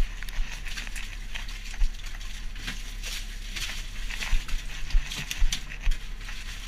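Fish being handled and moved in a basket by gloved hands: rustling and sliding, with scattered sharp knocks and thumps, over a low steady hum.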